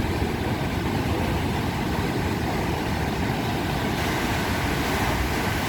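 Heavy ocean surf from big breaking waves: a steady rush of noise.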